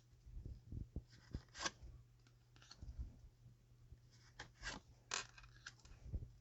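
Tarot cards being handled and turned over on a table: several short soft scrapes and light taps, over a low steady hum.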